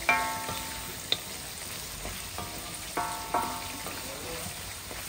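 Stir-frying in a black iron wok: a steady sizzle as a spatula tosses chicken, egg and vegetables in hot oil. The spatula strikes the wok with a ringing clang right at the start and twice about three seconds in.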